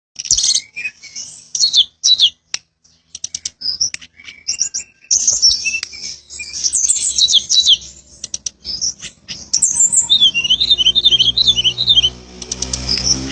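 Flycatcher singing loudly in bursts of rapid, high chirps and twitters mixed with dry clicking notes, with a quick repeated warbling phrase near the end. Background music comes in under the song near the end.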